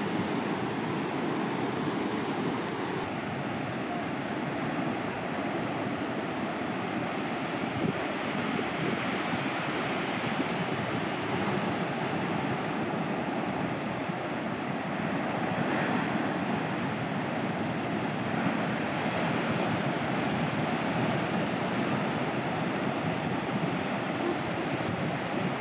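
Steady noise of heavy ocean surf, large waves breaking and foaming, with wind on the microphone.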